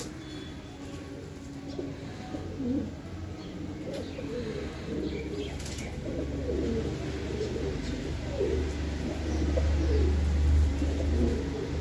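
Domestic pigeons cooing, several birds at once, with a low rumble building in the second half and loudest near the end.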